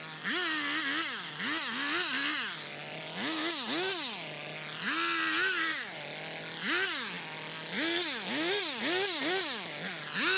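Stihl MS250 two-stroke chainsaw revving up from idle and dropping back again and again in short throttle bursts while cutting brush and small growth, with one longer held rev about halfway through.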